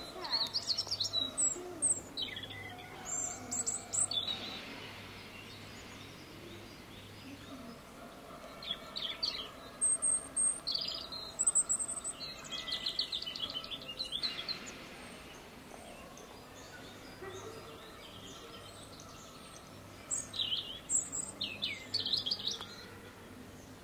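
Small birds chirping: quick runs of high twitters in three spells, at the start, from about nine to fourteen seconds in, and again about twenty seconds in, over faint room noise.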